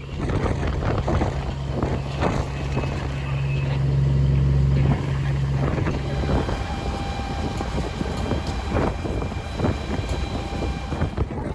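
Wind buffeting the microphone with a rumbling roar and scattered crackles. A steady low engine-like hum runs underneath and stops about six seconds in.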